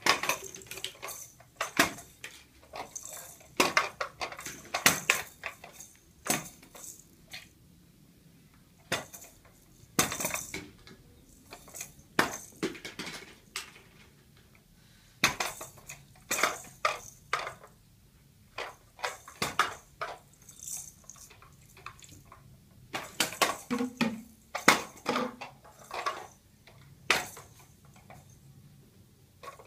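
Hard plastic toys and a plastic basket clattering as toddlers handle and drop them: irregular sharp knocks and rattles, some in quick clusters, with quiet gaps between.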